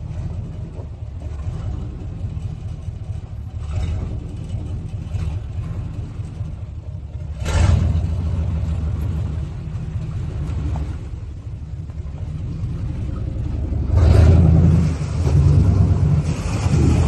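Chevy pickup truck engine running as the truck fords a river, with a sudden burst of throttle about halfway through. Near the end it gets louder and rougher, with water washing around the truck as it pushes through.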